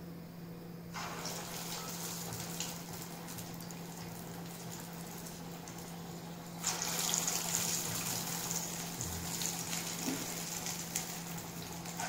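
Toor dal vada batter sizzling as it is dropped into hot oil in a frying pan. A steady hissing fry with crackles starts about a second in and gets louder about two-thirds of the way through as more batter goes in, over a steady low hum.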